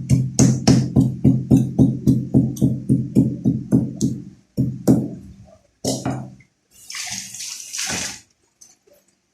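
A fast, even run of thuds, about four a second for some four seconds, followed by two single thuds and about a second of running or splashing water.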